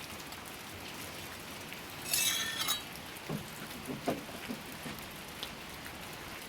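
Wood fire burning in a clay pizza oven, crackling and hissing steadily, with a louder burst of hiss about two seconds in.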